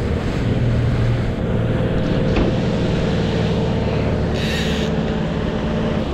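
Boat's outboard motor running steadily at trolling speed, over the rush of the wake and wind. A single sharp click comes about two and a half seconds in, and a short hiss near four and a half seconds.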